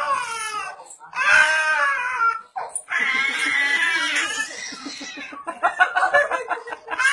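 High-pitched wailing cries in several long, drawn-out bursts, turning into quick pulsing sobs near the end.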